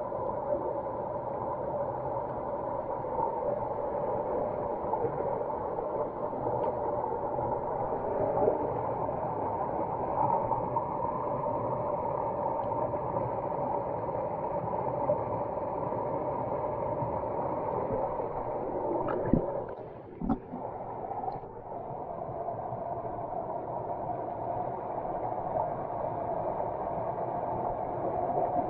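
Mountain stream running steadily over rocks, a continuous rush of water. About twenty seconds in, a few sharp knocks come as the water noise briefly drops.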